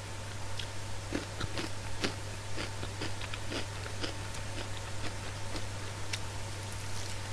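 Close-up eating sounds of crispy fried chicken with sliced onion: scattered small crunches and wet mouth clicks as it is chewed and bitten, thickest in the first half, over a steady low hum.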